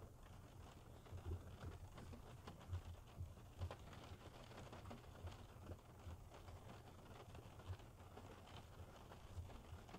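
Faint, irregular small clicks and light knocks from shifter parts being handled and fitted together.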